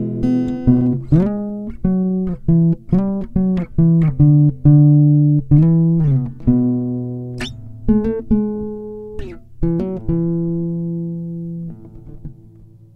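Solo acoustic guitar played fingerstyle: picked melody notes over bass notes, with a few slides between notes. Near the end a chord is left ringing and fades away.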